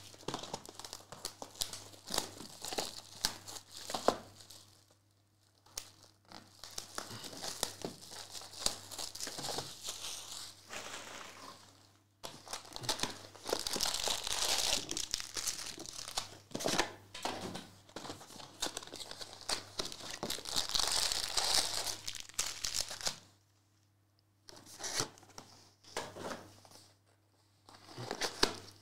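Trading-card packaging being torn open and handled: Panini Prizm World Cup Breakaway boxes ripped open and foil card packs crinkling, in irregular bursts with a few short pauses.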